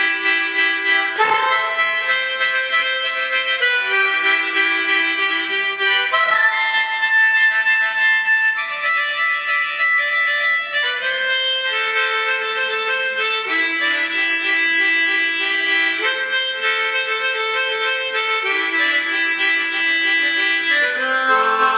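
QIMEI harmonica in the key of A being played: a melody of held notes and chords, changing about once a second.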